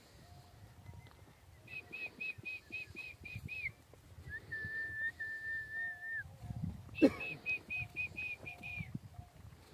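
High whistled calls: a quick run of about eight short notes, about four a second, ending in a falling note, then a long steady lower whistle, then the quick run again. A sharp knock about seven seconds in is the loudest sound.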